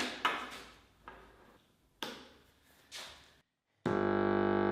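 A few struck musical notes that each ring and fade, then, near the end, a steady held organ-like tone rich in overtones that starts suddenly.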